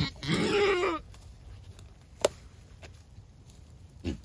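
A goat bleats once, a call lasting just under a second. Two sharp clicks follow, about two seconds apart.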